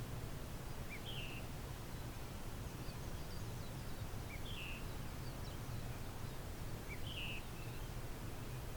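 Strong wind rumbling on the microphone, with a bird repeating a short two-note call about every three seconds and a few fainter chirps in between.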